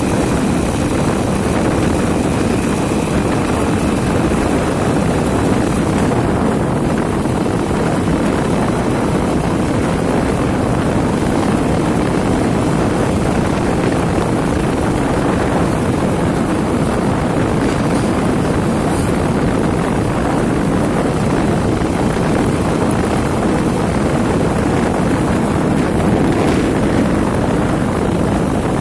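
Steady wind rumble on the microphone mixed with the running noise of a two-wheeler riding along a paved road.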